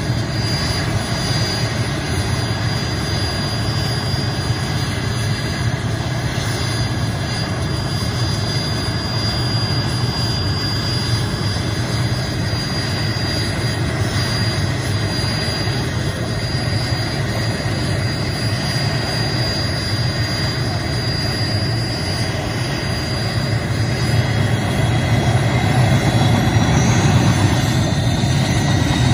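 Mil Mi-8-type twin-turbine helicopter running on the ground with its main rotor turning: a steady low engine and rotor noise under a thin high turbine whine. It grows louder near the end, and the whine settles to a slightly lower pitch.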